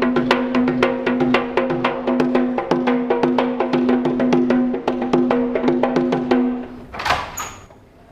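Background music: a fast, even beat of wood-block-like clicks over a held low note, stopping about seven seconds in, followed by a short rushing noise.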